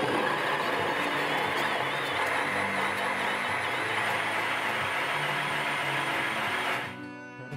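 A 4-inch hole saw on a DeWalt 12-volt cordless drill, running forward and cutting steadily down into plywood: a loud, even whir of saw teeth chewing through wood over the drill motor. It stops about seven seconds in, with the cut partway through the sheet.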